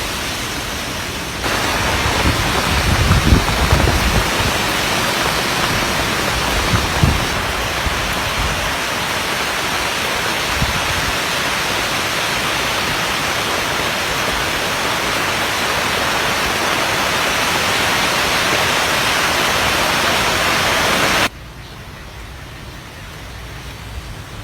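Heavy typhoon rain and wind, a loud steady hiss with low gusts buffeting the microphone in the first several seconds. Near the end it drops suddenly to a quieter hiss.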